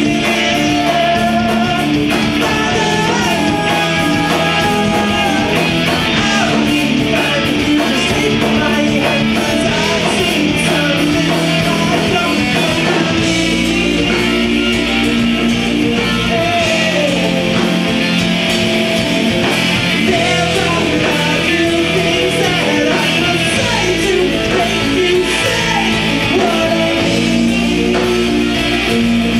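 A live progressive rock band playing: electric guitars, bass and drums, with winding melodic guitar lines over the band.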